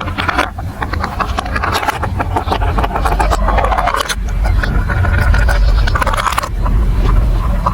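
Marbles rolling and clattering along a plastic building-block marble run: a continuous low rumble with many rapid clicks.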